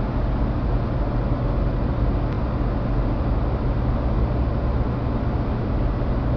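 A small model Stirling engine running steadily, a low even hum with a hiss over it.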